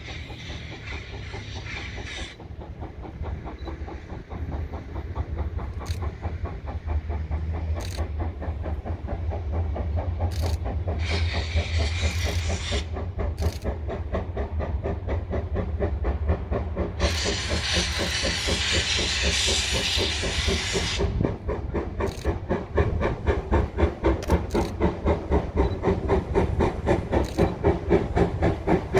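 Steam locomotive C11 325, a tank engine, approaching and getting louder, with three bursts of steam hiss, the longest a few seconds past the middle. Near the end its exhaust beats stand out as a strong, regular chuffing of two to three beats a second.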